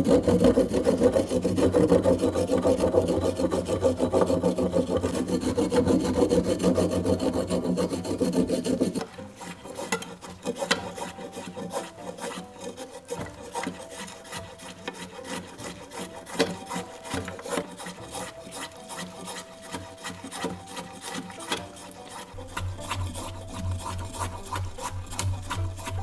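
A knife blade scraping the skin off a burdock root on a cutting board in rapid, loud strokes. About nine seconds in this gives way to quieter, quick scraping strokes as the knife shaves the root into thin slivers.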